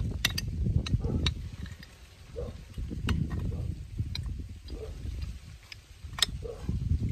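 Pipe wrenches clicking and knocking against the metal fittings of a propane line as a fitting is tightened, a few scattered sharp clinks with the loudest about six seconds in, over a low rumble.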